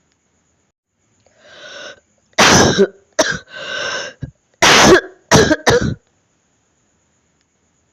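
A person's chesty cough with phlegm: a breath drawn in about a second and a half in, then a fit of about five hard coughs with a rasping breath between them.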